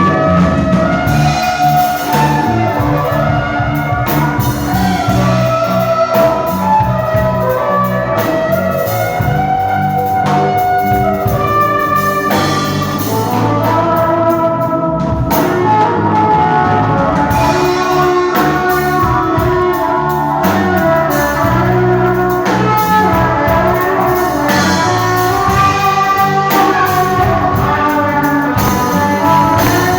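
A band playing: a melodic lead line moving up and down over steady bass and drums.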